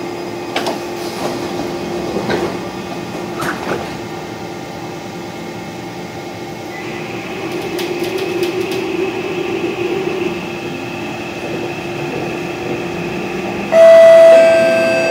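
Cab noise inside a Kawasaki Heavy Industries C151 metro train as it departs: the doors slide shut with a few knocks in the first few seconds, then a steady high whine comes in as the train starts to move. Near the end a loud steady tone sounds suddenly for about a second and then fades.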